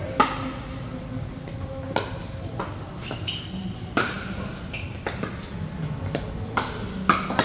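Pickleball rally: paddles striking the plastic ball with sharp, ringing pops about every two seconds, with fainter knocks between and a quick pair near the end.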